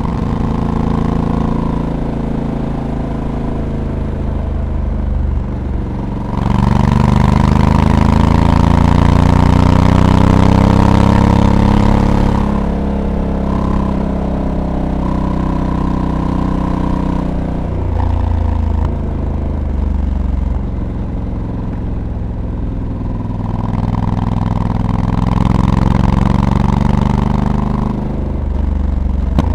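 Honda Africa Twin's parallel-twin engine running on the move, getting louder with its pitch climbing from about six seconds in as it pulls hard, easing back a little before halfway, and picking up again near the end, with a rush of noise over the engine while it pulls.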